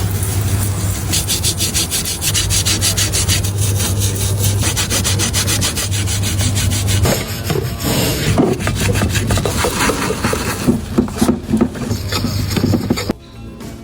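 Rapid back-and-forth scrubbing or scraping by hand on steering rack parts, several strokes a second, then more irregular scraping in the second half, while the parts are cleaned during a rebuild.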